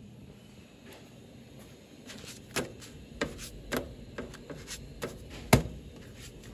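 Several sharp knocks and clicks of things being handled, spaced irregularly over the second half, with one louder knock about five and a half seconds in.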